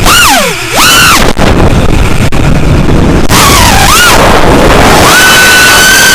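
Electric motor and propeller of an FPV model aircraft, heard through its onboard action camera: a loud, distorted whine that swoops down and back up as the throttle is cut and reapplied, dips again a few seconds later, then holds steady under full throttle, over heavy wind rush.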